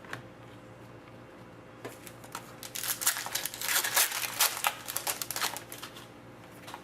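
Trading-card pack wrapper crinkling as it is handled, a dense run of crackles lasting about four seconds and starting about two seconds in.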